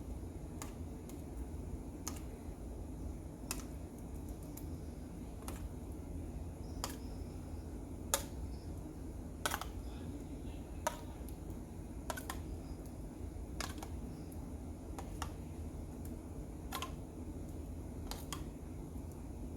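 A metal spoon clinking against a container as chili is spooned out, sharp single clicks roughly every second and a half over a steady low hum.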